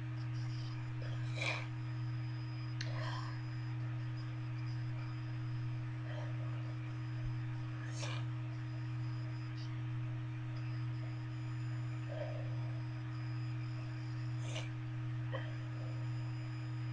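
A steady low electrical-sounding hum with a few faint, short clicks and rustles scattered through it.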